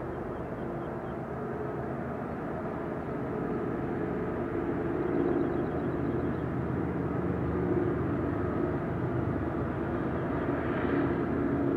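Several diesel freight locomotives running together, a steady low engine rumble and hum that slowly grows louder as they draw nearer.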